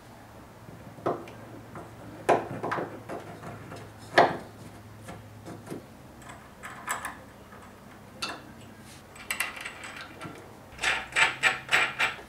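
A wooden mounting plate knocked against a board as it is slid onto bolts, then steel washers and nuts clinking and scraping as they are fitted onto the bolts by hand. A quick run of sharp metallic clicks comes near the end.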